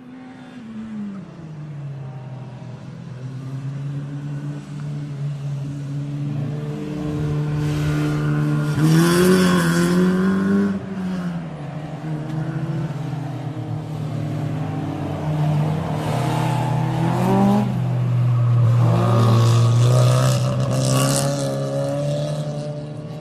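Lamborghini sports car engine running, revved up twice: around nine seconds in and again from about sixteen to twenty-one seconds, the pitch climbing and then dropping back each time.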